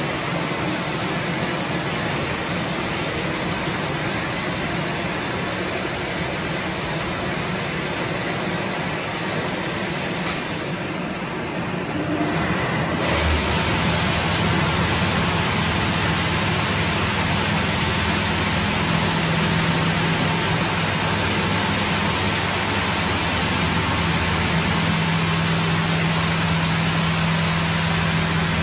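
Touchless automatic car wash at work: high-pressure water spray hissing onto a car over a steady motor hum. About eleven seconds in the spray briefly drops away, then it comes back louder with a stronger hum.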